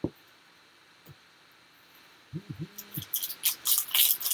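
Two light clicks, a brief two-note hum about two seconds in, then crinkling of a trading-card pack's foil wrapper being handled from about three seconds in.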